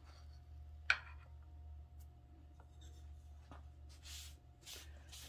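Faint rustling of a cloth rag being worked in a can of wood stain and lifted out, with one sharp click about a second in and a few soft swishes near the end. A low steady hum runs underneath.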